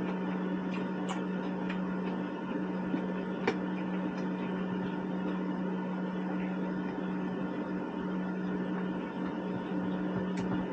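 A steady mechanical hum, with a few light clicks of a metal fork against a plate.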